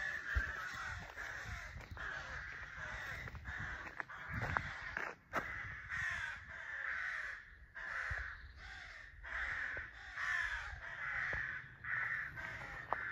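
Crow-family birds cawing repeatedly, harsh calls coming about once a second, over a low rumble.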